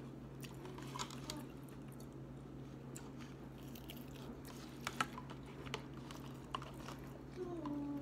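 Close-miked chewing of a mouthful of leafy salad, mixed greens with chicken and bacon bits, with a few sharp clicks from a plastic fork against the plastic salad container.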